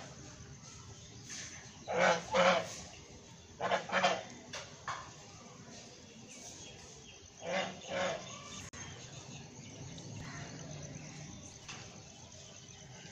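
Domestic geese calling: several short honks, mostly in pairs, with a pause in the middle.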